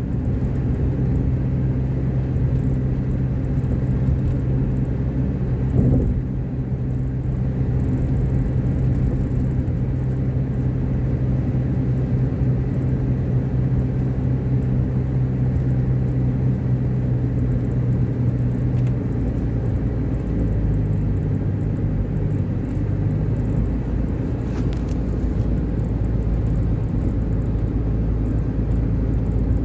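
Car driving at cruising speed: a steady engine hum under road rumble. There is a single thump about six seconds in, and the engine hum drops to a lower pitch about twenty seconds in.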